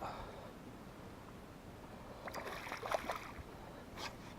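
Faint water and kayak sounds while a bass is played on the line, with a few light knocks or clicks in the second half.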